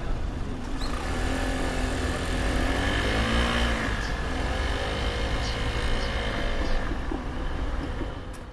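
Road vehicles pulling away across a railway level crossing once its warning bell has stopped, their engines rising and falling in pitch over a steady rumble. The sound fades out near the end.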